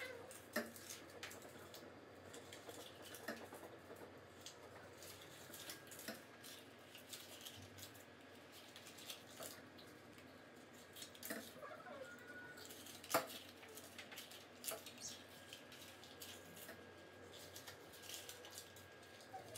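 Paper cupcake liners being pulled apart and set into metal muffin pans: faint scattered rustles and light clicks, with one sharper click partway through.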